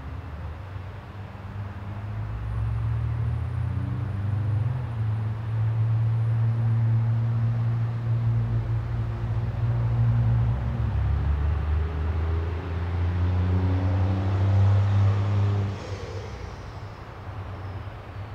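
Low motor hum with several steady tones that shift in pitch, growing louder about two seconds in and cutting off suddenly near the end, followed by a faint falling high whine.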